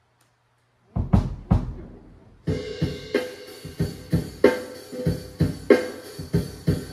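Drum kit played: after a second of silence, a few loud hits, then a steady beat with kick, snare and hi-hat sets in about two and a half seconds in, a stroke roughly every two-thirds of a second.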